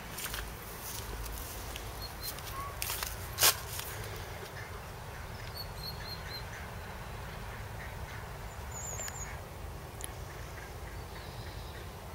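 Ducks quacking a few times in the first few seconds, the loudest about three and a half seconds in, with a few faint high bird chirps later over a steady low rumble.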